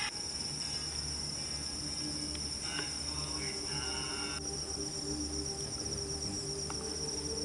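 Crickets chirping in a continuous pulsing trill, over faint low droning background music.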